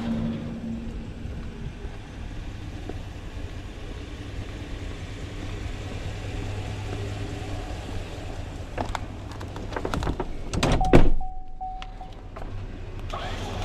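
Pickup truck engine idling steadily, with a few knocks as the driver climbs in, then the truck door shut with a loud thunk about eleven seconds in, followed by a short steady beep.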